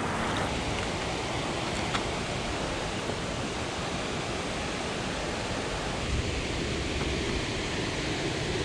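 Steady rush of fast-flowing river water, an even, unbroken noise.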